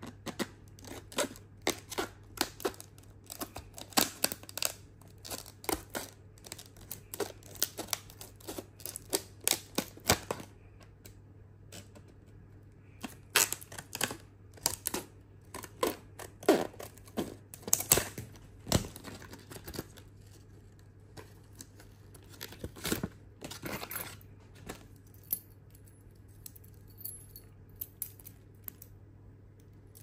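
Scissors snipping through a stiff plastic blister pack around a padlock: an irregular run of sharp clicks and crackles of cut and bent plastic, densest in the first ten seconds or so, then in shorter clusters with quieter handling between.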